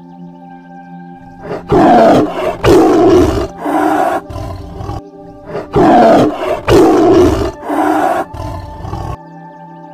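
Tiger roaring: two bouts of three loud, rough roars, each falling in pitch, over soft background music.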